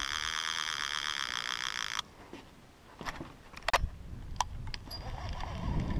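A loud, steady, high-pitched buzz that cuts off abruptly about two seconds in, followed by a few sharp clicks and knocks, then a low rumble that builds near the end.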